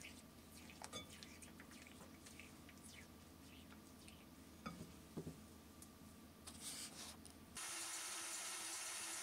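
Silicone spatula stirring and scraping thick chocolate batter in a glass bowl, with faint clicks and soft wet scrapes. About seven and a half seconds in, a steady hiss of running water starts suddenly.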